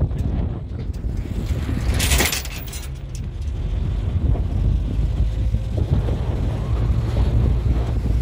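Vehicle running along a paved road: a steady low engine and road rumble, with wind buffeting the microphone and a brief louder rush of wind noise about two seconds in.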